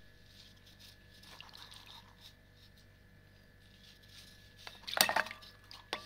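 A block of ice handled in an aluminium tray: soft wet rubbing and sliding, then a sharp clattering knock of ice against the metal about five seconds in, and a smaller knock just before the end.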